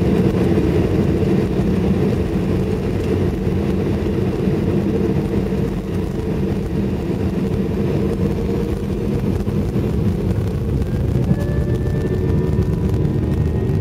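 Jet airliner heard from inside the passenger cabin while it moves on the runway: a steady low rumble of engines and wheels. Near the end a faint engine whine comes in, rising slightly in pitch.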